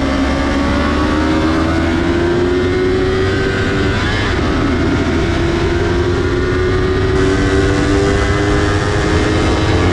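Yamaha R3 sport bike's parallel-twin engine held at high revs under full throttle, its note rising slowly as the bike accelerates down a straight, with a short break in the note about four seconds in. Heavy wind rush on the onboard microphone runs under it.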